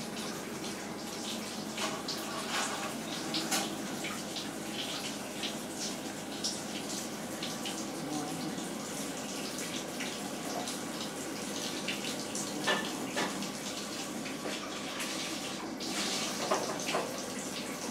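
A French bulldog licking a fabric dog bed: wet lapping and smacking in short, irregular clicks.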